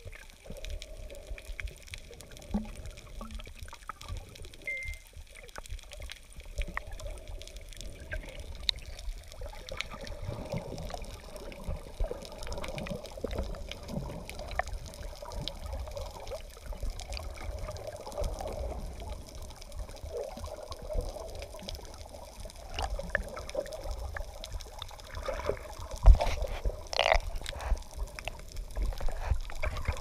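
Water rushing and bubbling past a sailing yacht's hull, heard underwater through an action camera's waterproof housing, muffled, with a low rumble and scattered small clicks. A single sharp knock comes near the end.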